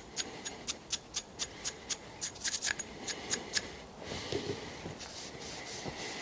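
Toothbrush scrubbing the threads of a shotgun choke tube in short, quick strokes, about four a second, stopping after about three and a half seconds. Then a rag rubbing over the choke, a steady soft rubbing.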